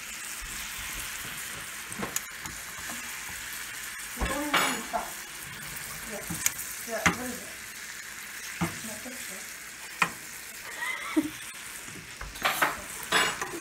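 Floured chunks of raccoon meat sizzling in melted butter in a nonstick skillet. Metal tongs click against the pan now and then as the pieces are turned, several times in quick succession near the end.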